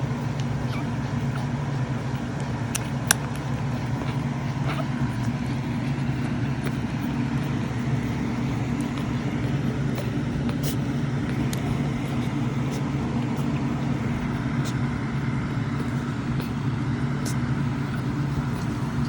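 Steady low mechanical hum with a few faint sharp clicks.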